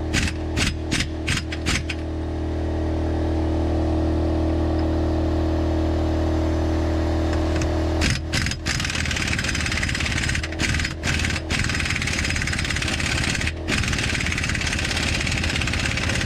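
Pneumatic impact wrench hammering in several bursts on a 32 mm rear axle nut through the second half, over a steady machine hum; short regular knocks in the first couple of seconds.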